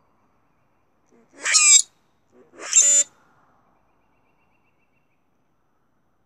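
Male common grackles singing: two short, creaky songs about a second apart, each swelling to a shrill squeak, given as a display between males.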